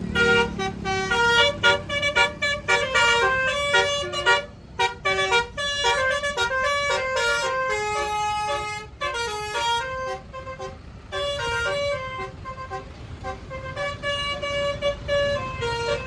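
Indonesian bus 'telolet basuri' musical horn playing a fast tune of short tooting notes, several pitches at once, with a few brief breaks.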